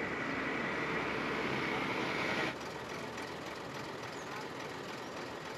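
Steady roadside vehicle noise, with faint voices under it. The sound drops and changes abruptly about two and a half seconds in.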